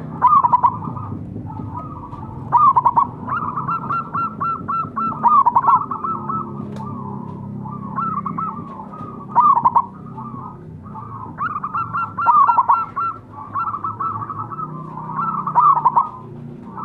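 Zebra doves (perkutut) cooing: phrases of quick staccato coos, with about six loud phrases a few seconds apart and softer cooing between them.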